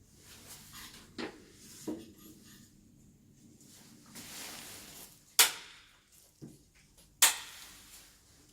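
Two soft knocks, a short rustle, then two sharp loud clacks about two seconds apart, the second near the end.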